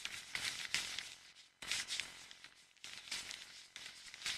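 Faint rustling and crackling, with many small ticks, in patches broken by abrupt cut-outs about one and a half and three seconds in.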